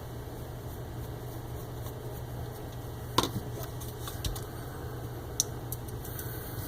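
Small sharp clicks of screws and a Phillips screwdriver against a metal hard drive caddy as the screws are put back: one loud click about three seconds in, then a few fainter ones. A steady low hum runs underneath.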